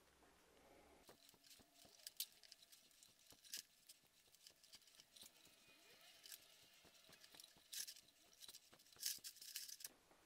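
Faint handling noises of a ribbed black sleeve being worked onto a grey plastic tube by hand: irregular scraping and rubbing with small clicks, a few louder scrapes near the middle and toward the end.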